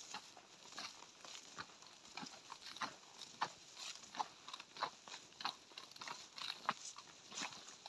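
Footsteps hurrying through a young crop field: irregular crunches of dry soil clods underfoot and the brush of stalks against clothing, about two or three steps a second.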